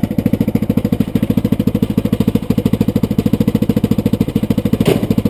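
Yamaha Rhino UTV's single-cylinder four-stroke engine idling steadily with an even, rapid pulse; a brief knock comes near the end.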